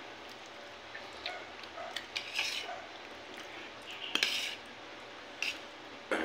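Metal spoon and fork clinking and scraping against a plate while food is scooped up: a few scattered light clinks and short scrapes.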